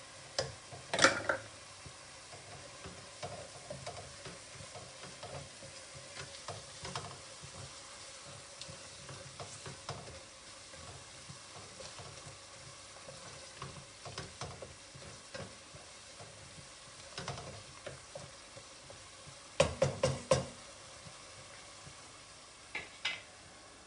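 Onion, tomato and spice masala with fresh coriander and mint sizzling gently in a pot on low heat while a spoon stirs it, scraping and clicking against the pot. A few louder knocks of the spoon on the pot come about twenty seconds in.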